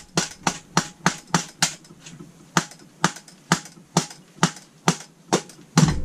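Rubber mallet tapping repeatedly on a Holley four-barrel carburettor to knock a stuck part loose: a steady run of sharp taps, about three a second at first, then a little slower.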